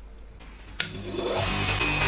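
A faint low hum, then a sharp click less than a second in and a bench grinder with a cloth buffing wheel starting up, its hum rising in pitch as it comes up to speed. A bar of polishing compound is then pressed against the spinning wheel, adding a loud steady rubbing noise.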